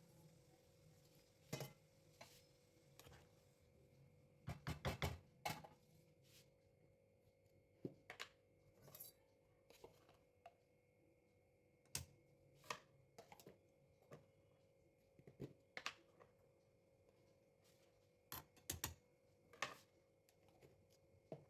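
Kitchen utensils and dishes clinking and knocking at irregular intervals, with a quick cluster of several knocks about five seconds in, over a faint steady hum.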